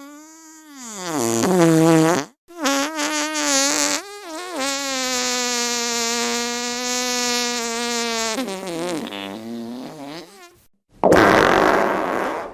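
Three fart sound effects in a row. The first is a pitched one that falls in pitch and ends about two seconds in. The second is a very long, drawn-out one that wavers, holds one steady note for several seconds, then wavers again and stops about ten seconds in. The third, near the end, is a short, loud, rough and noisy one that fades out.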